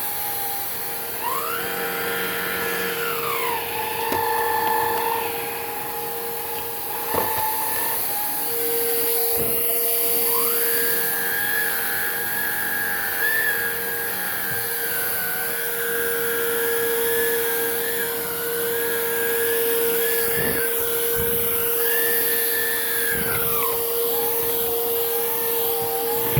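Hoover React cordless vacuum running, its motor whine jumping to a higher pitch about a second in, dropping back, then rising again around ten seconds in and holding until near the end. A few light knocks from the vacuum's head along the way.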